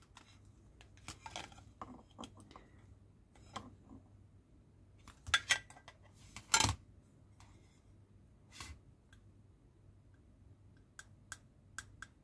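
Plastic parts of a 1:8 scale model car door handled and fitted together: scattered light clicks and taps, the loudest about six and a half seconds in, and a quick run of sharp ticks near the end.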